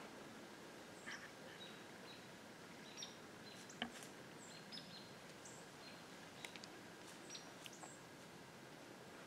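Quiet woodland ambience: a faint steady hiss with scattered short, high bird chips and a few faint clicks, the loudest click about four seconds in.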